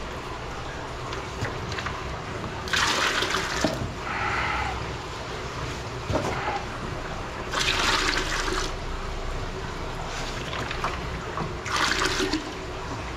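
Aquarium water being scooped and poured: three louder splashing pours, about 3 s in, about 8 s in and near the end, over a steady trickle of running water.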